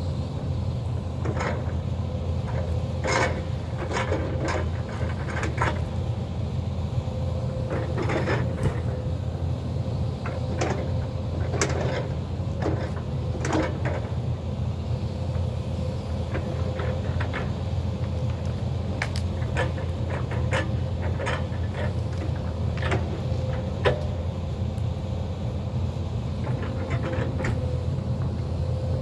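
Hyundai crawler excavator's diesel engine running steadily under load with a steady whine, while many irregular sharp cracks and knocks sound as its grapple and forks tear out brush, trees and stumps.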